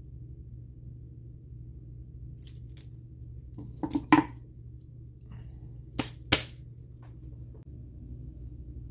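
Sharp plastic clicks and snaps from a small tool working at the keys of a 2009 aluminium Apple wireless keyboard. A quick cluster comes about four seconds in, then two louder snaps about two seconds later, over a low steady hum.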